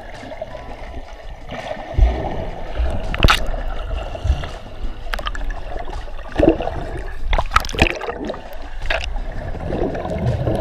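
Sea water sloshing and gurgling, heard with the camera underwater, with several sharp splashes or knocks from a swimmer's front-crawl arm strokes. The splashes come about two seconds in, again a little later, and twice more around the middle.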